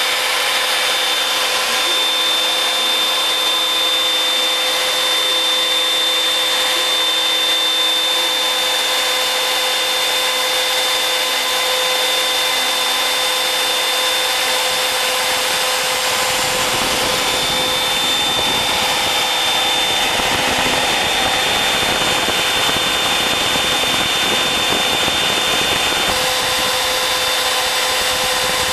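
Homemade CNC router's spindle running with a steady high whine as its bit mills a 25 mm beech board. The cutting noise grows rougher and fuller about halfway through.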